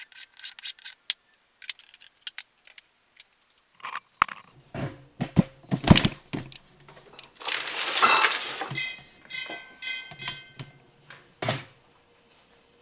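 Workshop handling sounds of tools and wood on a bench: scattered light clicks, then a run of loud knocks and clatters about four to seven seconds in, a brief scraping rush about eight seconds in, and one more knock near the end.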